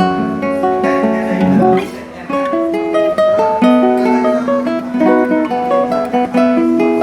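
A 2023 lattice-braced classical guitar by luthier Stephen Connor, played as a solo: a melody of plucked notes ringing over held lower notes, with a short lull about two seconds in.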